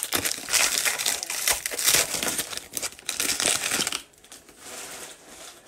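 Foil trading-card pack wrapper crinkling and tearing as it is ripped open and crumpled by hand. The crinkling stops about four seconds in, leaving a faint rustle.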